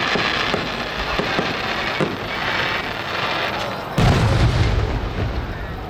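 Aerial fireworks shells bursting: scattered sharp pops and crackle, then a heavy boom about four seconds in, followed by a low rumble that lasts.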